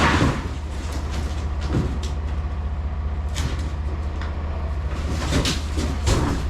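Semi truck's diesel engine idling steadily, with a few clunks and knocks over it.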